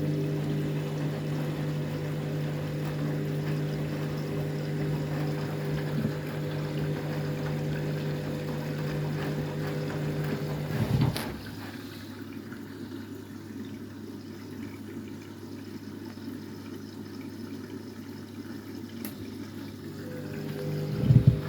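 Washing machine filling with water for its rinse: water rushing in over a steady hum. The hum stops with a knock about halfway through, and starts again with a knock near the end.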